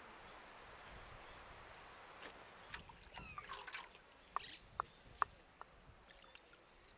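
Water sloshing in a metal bucket as a hand works in it, followed by a few sharp drips, over faint outdoor ambience.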